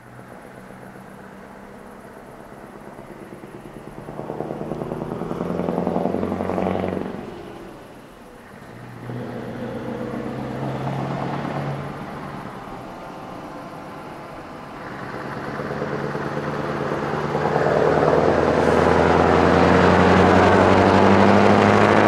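Scania 164L 480 truck's 16-litre V8 on an open exhaust pipe pulling up through the gears. The engine note rises and drops back twice at the shifts, then grows steadily louder and rumbles as the truck draws close.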